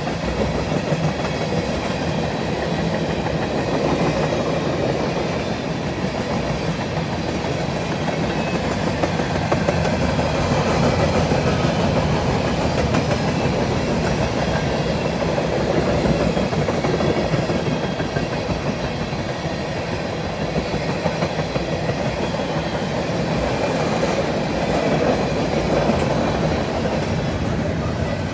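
Freight train cars rolling steadily past: the continuous rumble and clatter of steel wheels on rail from a string of tank cars, with double-stack container cars coming by near the end.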